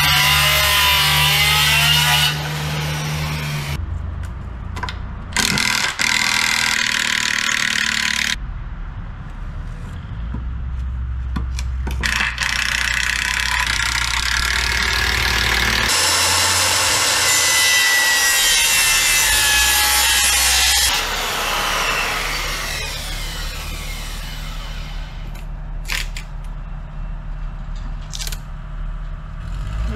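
Cordless circular saw cutting through a wooden board in separate passes: a loud cut for the first couple of seconds and another from about 16 to 21 seconds in, with quieter tool noise, motor hum and a few knocks between.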